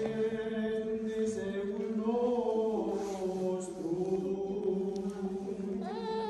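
Eastern Orthodox liturgical chant: voices singing a slow melody over a steady held low drone note.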